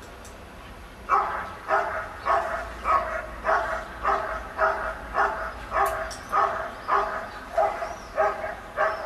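German Shepherd barking at a helper holding a bite sleeve in a protection exercise: about fourteen short, loud barks in a steady rhythm, a little over half a second apart, starting about a second in.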